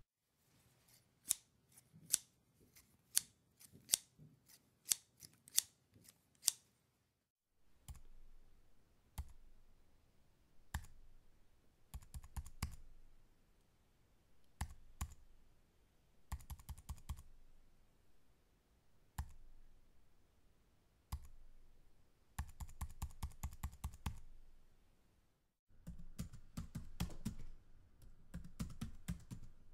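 Scissors snipping in sharp separate clicks, then slow, halting typing on a computer keyboard in short bursts with pauses, and near the end steadier, continuous typing.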